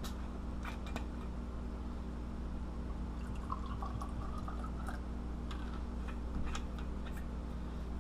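Whiskey poured from a glass bottle into a small glass, the pour's pitch rising slightly as the glass fills. Several sharp clicks of glass being handled come near the start and again later.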